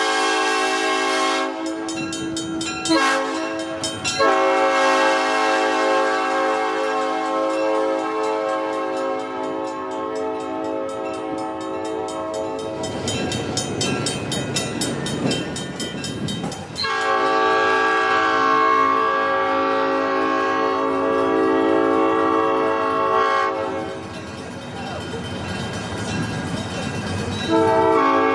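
Southern Pacific E9 No. 6051's air horn sounding in long, held blasts. It breaks briefly about two and four seconds in. Twice the tone gives way to a rushing hiss for a few seconds before the horn sounds again.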